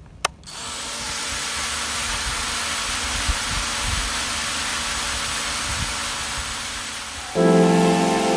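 A click, then FPV racing quadcopter motors and propellers spinning up into a steady whirring hiss. About seven seconds in, background music with piano-like notes comes in over it.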